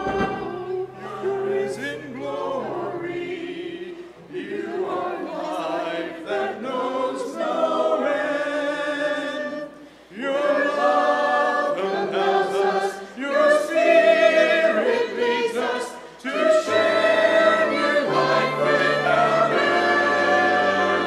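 Church choir singing an anthem in parts, with sustained low organ notes beneath the voices.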